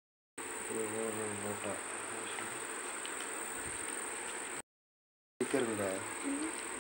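Steady high-pitched trilling of insects in the background, cutting out twice to silence for under a second. A voice is heard briefly about a second in and again near the end.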